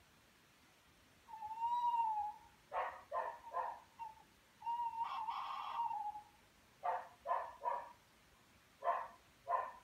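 An animal calling in the dark: short barks in runs of two or three, and twice a longer drawn-out call of about a second and a half, held at one pitch with a slight rise and fall.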